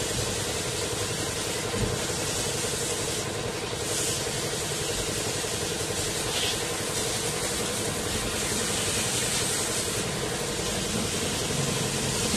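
High-pressure water hose spraying a motorcycle: a steady hiss of the water jet over a steady machine hum.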